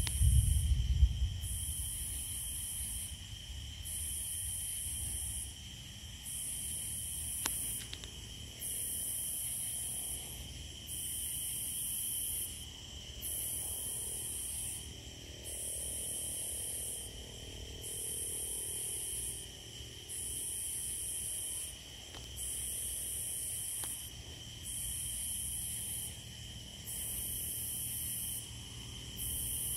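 Night insects calling. A very high chorus pulses on and off about every two seconds over a steady high-pitched trill. A low rumble dies away in the first couple of seconds.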